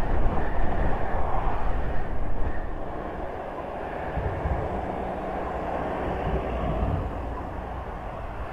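Wind rush and road noise from riding an e-bike in traffic. It is louder for the first two and a half seconds, then eases to a steadier, lower rumble.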